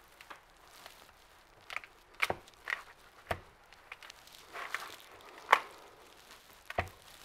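Kitchen knife cutting through a hard block of beeswax on a plastic cutting board: irregular short knocks and brief scrapes, the sharpest about five and a half seconds in, as the blade is worked down through wax that is hard to cut.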